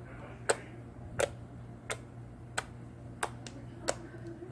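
Sharp clicking pops from slime being poked, evenly spaced about every two-thirds of a second, over a low steady hum.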